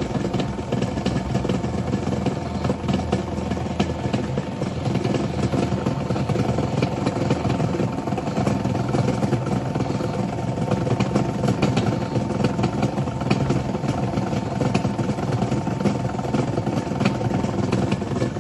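Franz Müller SM 152 granulator running: its 2.2 kW electric motor and rotating blades make a steady hum with a constant whine. Frequent irregular clicks and clatter sit on top of the hum.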